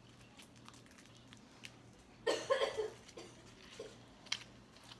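Slime being squeezed and kneaded by hand, with faint scattered crackles and clicks. About two seconds in, a brief vocal sound is the loudest thing.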